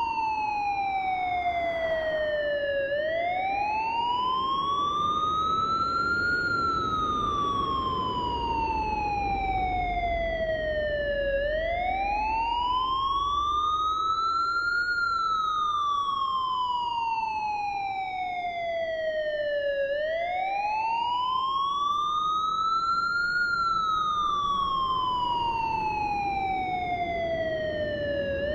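Siren wailing slowly: its pitch climbs for about three and a half seconds, then falls for about five, repeating about every eight and a half seconds, three full cycles. A steady low rumble runs beneath it.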